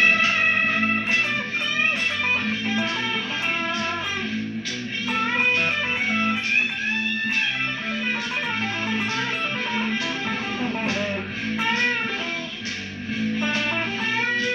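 Electric guitar playing a melodic blues-rock line, single notes with bends over low notes that repeat in a steady pattern.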